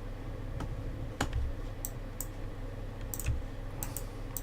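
Irregular clicking at a computer: about nine sharp key and button clicks spread unevenly, over a steady low hum.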